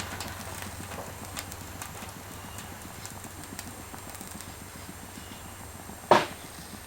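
Steady low hum and hiss with scattered light clicks, and one sharp knock about six seconds in.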